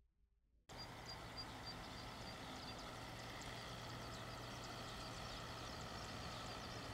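Cab tractor with a mower cutting tall weeds: a steady low engine hum over open-field noise, cutting in sharply under a second in after near silence. A row of short high peeps sounds over it early on, with faint high ticks throughout.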